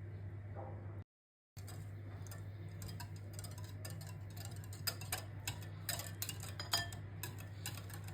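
Scattered light clicks and taps of kitchen utensils and dishes being handled, over a steady low hum. The sound drops out briefly about a second in, and the clicks grow busier and louder near the middle.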